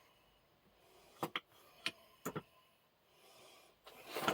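A handful of light, sharp clicks and knocks of metal tools and parts being handled while a small Record No. 0 bench vise is being taken apart, with a louder, longer scraping noise near the end.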